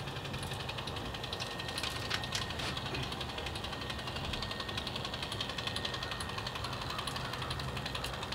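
Cordless impact driver hammering steadily with a very fast, even rattle and a thin whine, driving screws through a window's nailing flange into the wall framing.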